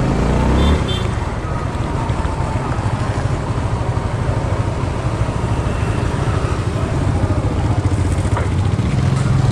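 Honda scooter's engine running as it rides along a street, rising in pitch in the first second as it pulls away, over steady road and wind noise.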